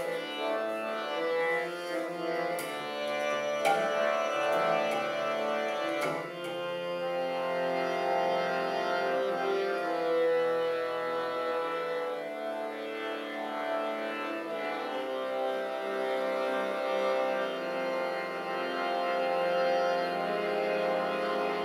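Kirtan music: a harmonium holding long sustained chords with a hand drum keeping time, and a few sharp strikes between about three and six seconds in.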